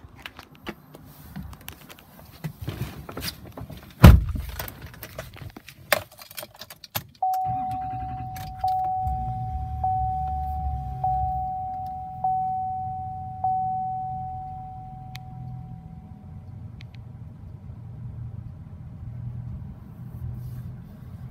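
Clicks and rustling with a jangle of keys, then a vehicle door shuts with a loud thump about four seconds in. About seven seconds in, the Chevrolet Silverado High Country's V8 starts and settles into a steady idle, while a warning chime dings about six times, once every second or so, then stops.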